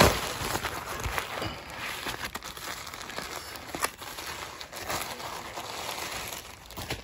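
Plastic packaging crinkling and rustling as it is handled and pulled off a wrapped part, with many small crackles and a louder rustle at the start.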